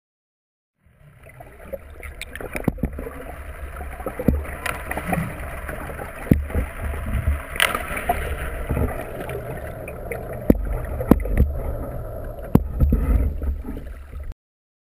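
Muffled water noise picked up by a camera held underwater, with a low rumble and scattered sharp clicks and knocks. It starts about a second in and cuts off suddenly near the end.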